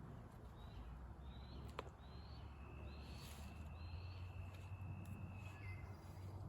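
Faint woodland birdsong: short high chirps about once a second, overlapped in the middle by a long thin steady note. A steady low rumble sits underneath, and there is a single click a little under two seconds in.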